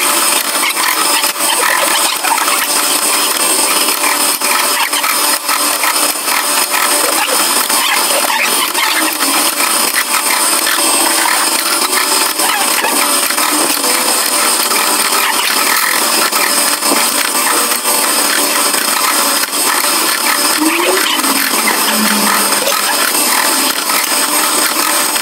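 Power tools working metal in a workshop: a continuous loud grinding, cutting noise with a faint steady high whine, unbroken by pauses.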